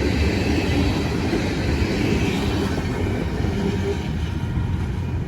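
Freight train rolling along the track: a steady low rumble of wheels and cars, easing slightly near the end.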